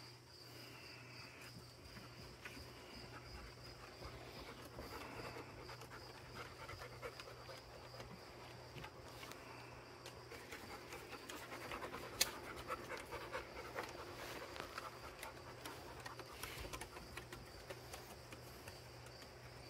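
Labrador retriever panting close by, getting stronger a few seconds in, over a steady chorus of crickets. One sharp click sounds about midway.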